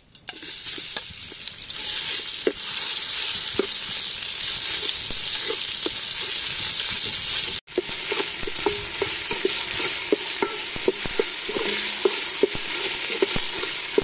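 Khmer curry paste of turmeric, garlic, galangal and lemongrass sizzling steadily as it fries in hot soybean oil in a metal pot. The sizzle starts just after the start as the paste drops into the oil. A metal ladle taps and scrapes against the pot as the paste is stirred, more often in the second half.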